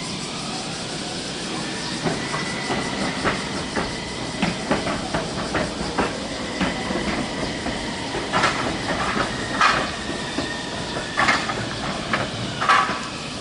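Okayama Electric Railway tram running past, its wheels clacking over rail joints and points in an irregular series with a steady high whine. Several louder sharp bursts come in the second half, the loudest near the end.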